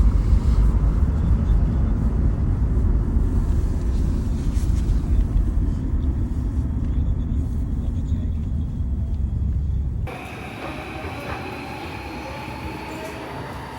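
Electric commuter train running, heard from on board: a loud low rumble, then after an abrupt change about ten seconds in, quieter running with the steady whine of its electric motors.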